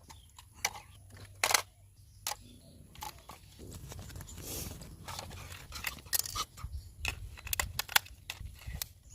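Handling noise close to the microphone: scattered clicks, taps and short rustles over a low rumble, typical of a toy and its packaging being handled.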